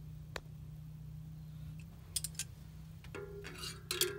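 Pliers and a steel socket clinking against a steam radiator's air vent: a few sharp metallic ticks, then a short ringing clatter near the end, over a steady low hum.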